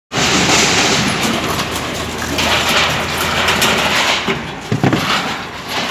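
Wheeled excavator's diesel engine running under a dense din of crunching and scraping, as its bucket tears apart the marquee's metal roof sheeting and frame. There is a heavier thud near the end.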